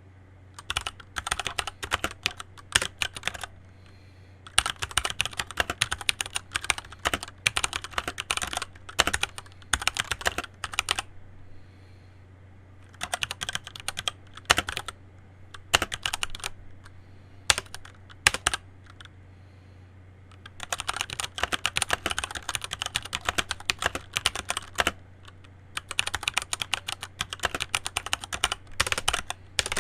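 Typing on a Keychron C1 mechanical keyboard: bursts of quick keystroke clicks with short pauses between them, over a faint steady low hum.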